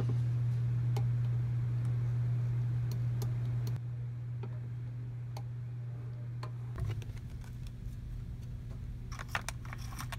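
A steady low hum with scattered light clicks of a computer mouse being clicked. Near the end comes a short cluster of quick clicks.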